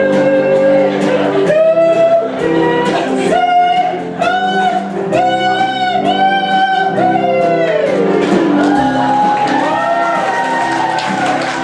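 A voice singing long held notes over instrumental accompaniment, with one note sliding downward about eight seconds in.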